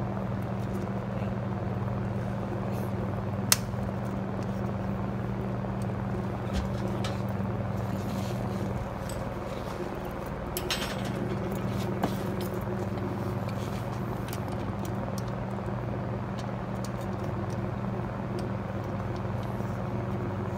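Scattered small clicks and taps of hand tools working a bicycle saddle's seatpost clamp, with one sharp click about three and a half seconds in, over a steady low hum.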